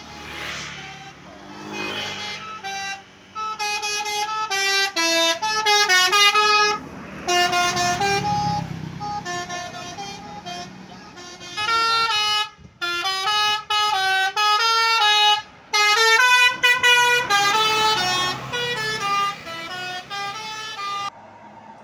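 Indonesian bus 'basuri' musical horn playing a tune: a run of loud held notes stepping up and down in pitch, broken by a couple of brief pauses midway, over the low rumble of a bus engine.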